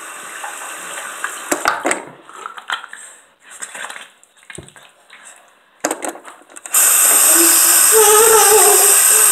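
Scattered rubbing and handling noises, then about two-thirds of the way through a bathroom sink tap is turned on and water runs loudly and steadily into the basin.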